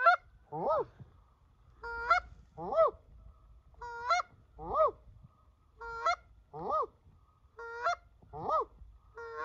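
Goose call blown by hand: two-note honks, a short flat note then a higher arching honk, repeated evenly about every two seconds, calling to passing wild geese.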